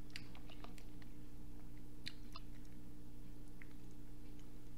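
Soft scattered clicks and mouth sounds of fingers picking through a container of seafood boil and chewing a bite, over a steady low hum.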